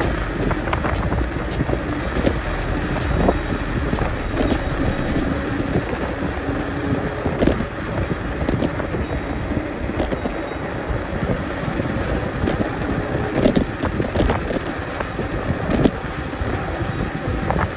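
Riding noise from a bicycle on a paved road: steady wind on the microphone and tyre rumble, with frequent small clicks and rattles.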